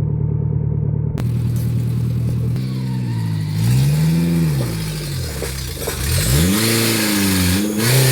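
Off-road 4x4's engine running steadily, then revved up and back down twice as the vehicle works over the rocks.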